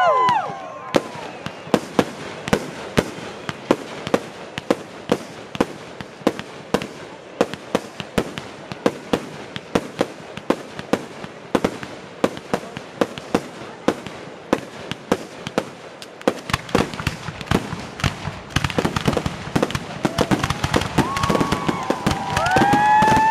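Fireworks display: a steady run of sharp bangs and crackles, about two or three a second, growing denser about two-thirds of the way through. Near the end, several long pitched whistles rise and fall over the bursts.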